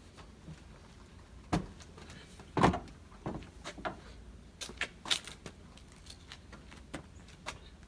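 Knocks and clunks of a Himiway Cruiser fat-tyre e-bike being lifted and worked into a van's side doorway, the two loudest about one and a half and two and a half seconds in, followed by a run of lighter clicks and rattles.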